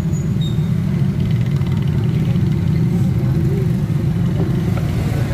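Steady low rumble of road traffic and vehicle engines.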